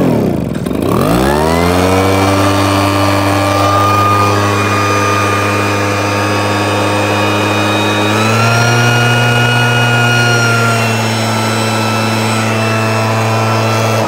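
Small two-stroke engine of a backpack mist-blower sprayer, pull-started: it fires and falters, catches about a second in and settles into a steady run. About eight seconds in it speeds up slightly, and at the very end it is switched off and starts to wind down.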